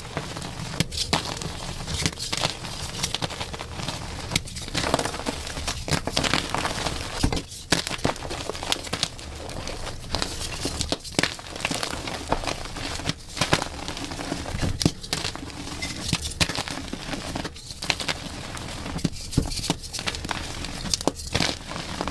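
Chalk being crushed and crumbled, a dense crunching crackle that dips briefly every couple of seconds.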